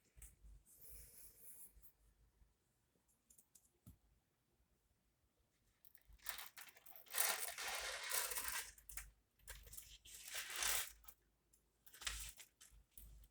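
Beads and their packaging being handled in bracelet making: crinkling and rustling in bursts, loudest from about six to nine seconds in, with shorter bursts after.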